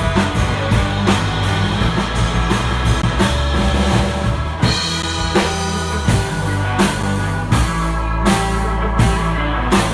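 Live rock band playing an instrumental passage: electric guitar and electric keyboard over a drum kit keeping a steady beat, with regular cymbal hits.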